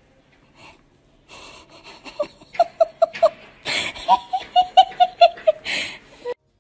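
A person laughing in two runs of quick, high-pitched giggles, with wheezing breaths between them.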